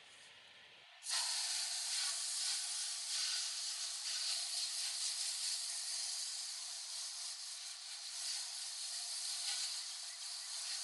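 Garden hose spray nozzle spraying water onto a whitewall tire and wheel cover, rinsing off the tire cleaner. A steady hiss starts about a second in and keeps on.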